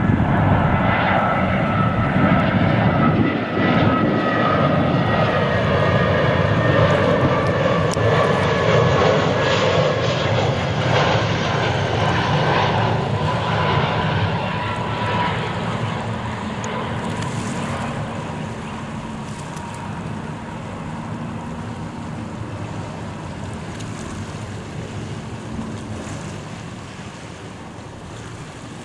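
Airbus A320 on final approach with gear down, its jet engines running with high whining tones that slide slowly down in pitch. The sound fades through the second half as the airliner moves away to land.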